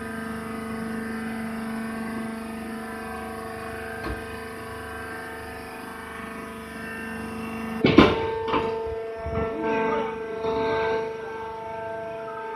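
Hydraulic wood chip baler running, its motor and pump giving a steady hum. About eight seconds in there is a loud metallic clank, then several more knocks and clatters, and the hum changes.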